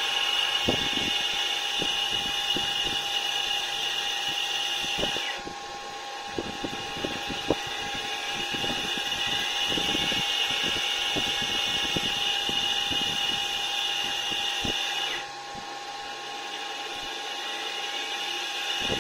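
ABB ACS550 variable frequency drive running a motor on load test: a steady high-pitched electrical whine with a lower hum underneath. The whine drops out and the sound dips about five seconds in and again about fifteen seconds in, with a run of light clicks and crackles between.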